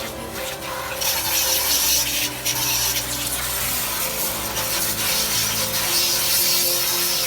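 1600 W electric pressure washer spraying its high-pressure water jet, a steady hiss that gets louder about a second in.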